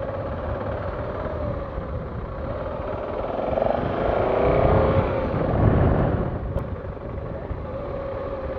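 Motor vehicle engine running, growing louder with a shifting pitch in the middle before settling back to a steady hum.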